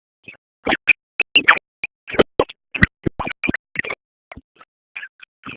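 Eating sounds close to the microphone: a dense, irregular run of short clicks and taps, thickest in the middle and thinning out towards the end.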